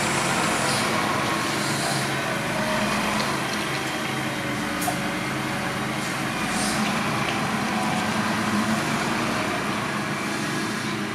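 Fendt 211 Vario tractor's three-cylinder, 3.3-litre AGCO Power diesel engine running steadily as the tractor drives about the yard.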